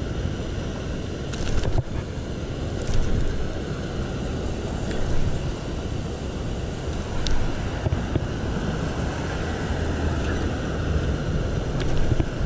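Steady rush of water pouring through a concrete spillway, with gusts of wind on the microphone and a few small clicks.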